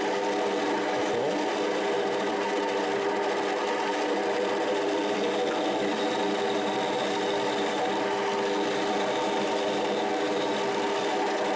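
Rotwerk 7x14 mini lathe running at a steady speed, its motor and gear train giving an even whine.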